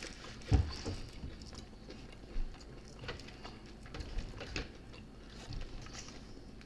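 Close-miked eating: biting and chewing fried chicken wings, with scattered small clicks and knocks from handling the food, the loudest a soft thump about half a second in.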